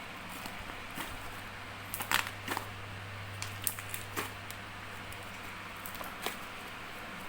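Dish-soap slime being handled: irregular small sticky clicks and pops, the loudest cluster about two seconds in, over a steady low hum and hiss.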